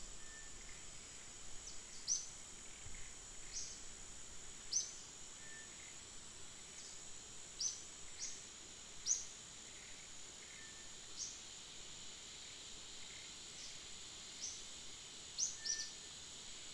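Steady high-pitched insect drone of outdoor forest ambience, with short, high, falling bird chirps every one to two seconds.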